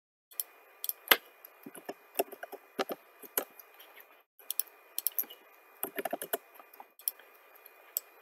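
Computer keyboard and mouse clicking in irregular bursts, with a dense run of clicks about six seconds in, over a faint steady hiss.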